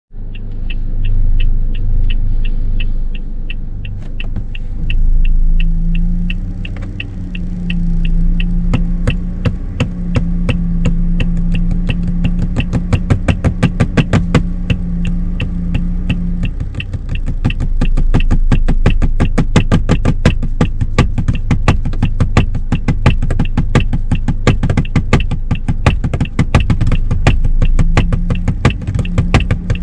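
Car hazard-light flasher relay ticking steadily. About eight seconds in, hand tapping joins in, drumming a rhythm in time with the ticks. A low engine hum runs underneath.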